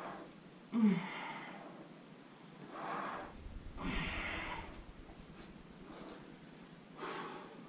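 A man breathing hard from exertion, four forceful breaths a second or three apart, the first with a short grunt.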